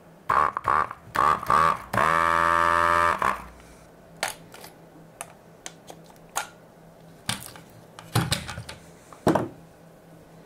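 Desoldering work at the bench: a steady buzz lasting just over a second, which fits the vacuum pump of an electric desoldering tool drawing solder off a diode's joints, among scattered clicks and taps as the circuit board and the part are handled.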